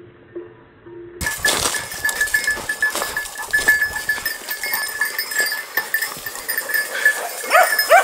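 From about a second in, small bells jingle rapidly and steadily over rustling and footsteps through brush. Near the end, hunting dogs give two short rising yelps.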